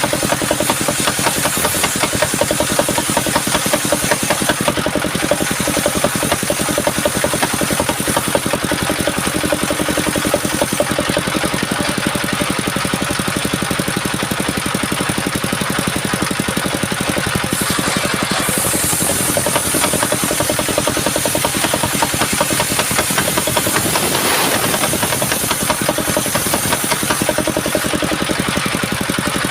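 Engine driving a homemade mobile circular-saw sawmill, running steadily with a constant high hiss over it. About eighteen seconds in, the hiss briefly grows brighter.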